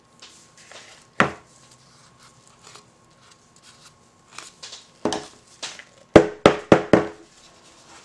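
Plastic soap-making containers, a pouring pitcher and a mixing bowl, knocking and rubbing as they are handled on a stainless steel counter: one sharp knock about a second in, light scrapes and taps, then a quick run of about five sharp knocks near the end.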